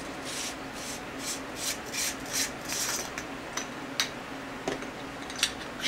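Threads of a Fenix TK35 flashlight's aluminium body rasping as it is unscrewed by hand to open the battery compartment: a run of short scratchy strokes, with a few sharp clicks in the last two seconds.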